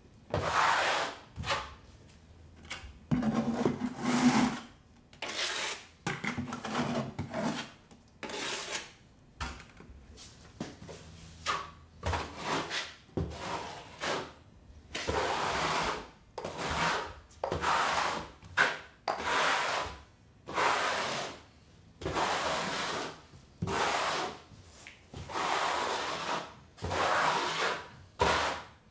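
Steel notched trowel scraping thinset mortar across a drywall panel in repeated rough strokes, about one a second: the mortar being keyed in and combed into ridges.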